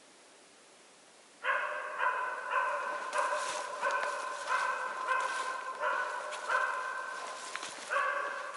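West Siberian Laika barking repeatedly, about two barks a second, starting about a second and a half in.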